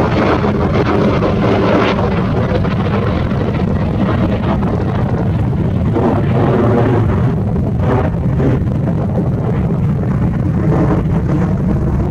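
Steady rumble of wind buffeting the microphone, mixed with the distant jet engines of an Airbus A320-family airliner on final approach, with a few brief gusts.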